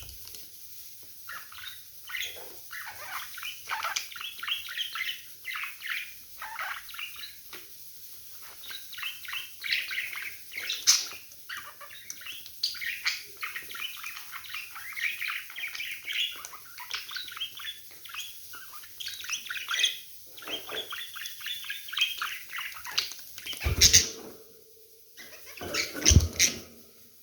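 Budgerigars chattering and warbling: a steady stream of quick, scratchy chirps. Two loud knocks come near the end.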